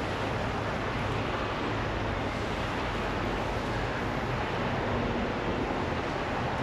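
Steady wind noise on the microphone: an even rushing sound with nothing standing out.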